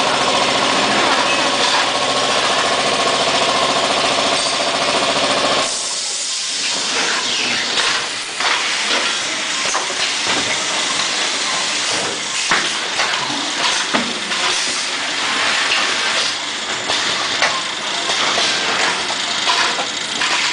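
Automatic carton packing machine running with a steady hum of several held tones. About six seconds in, this changes abruptly to a steady hiss with irregular mechanical clicks and clacks.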